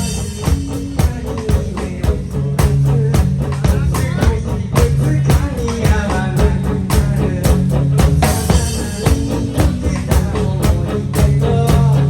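A live band playing a song: a drum kit keeps a steady beat under bass and guitar, with singing.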